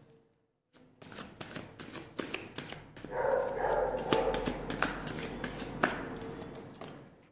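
A deck of tarot cards shuffled by hand: a quick run of card clicks and flicks starting about a second in, with a denser rustle in the middle, fading near the end.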